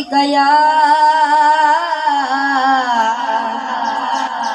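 A boy singing a naat unaccompanied into a microphone, holding one long note that is steady at first, then wavers and sinks slightly about two seconds in.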